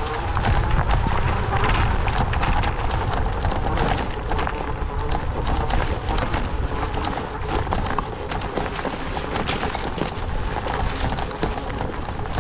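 Rehasense PAWS Tourer off-road wheelchair rolling along a forest trail, its tyres making a steady run of small crackles and crunches on the ground. Wind rumbles on the microphone throughout.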